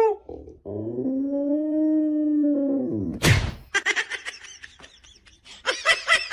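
A dog howling: one long call that rises and then falls, lasting about two and a half seconds and ended by a sharp burst. Rapid runs of short, high-pitched sounds follow.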